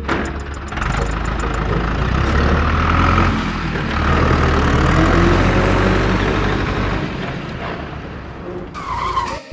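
A motor running steadily with a low hum, dying away near the end.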